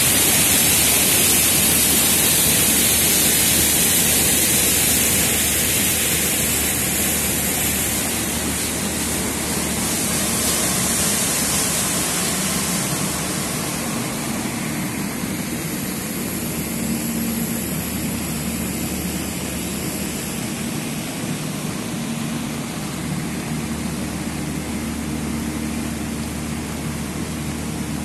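Flood water gushing out of a pump's discharge pipe, a loud rushing spray over the steady hum of the pump running. About halfway through the rush drops away, leaving the pump's low hum and a softer wash of water.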